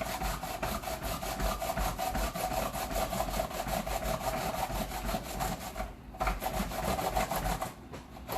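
Cucumber being rubbed quickly back and forth on a grater, a fast even run of rasping strokes that stops briefly twice.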